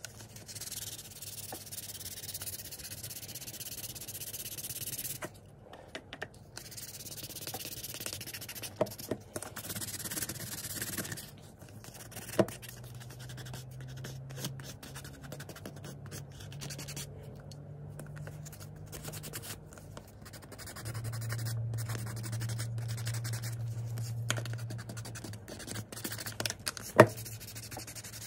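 600-grit sandpaper rubbing back and forth over a plastic toy grille in wet sanding, in spells with short pauses. A few sharp knocks come through, the loudest near the end.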